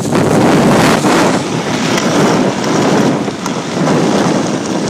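Wind buffeting the microphone and snow hissing under a rider going fast down a groomed slope, a loud rough noise that swells and eases every second or so.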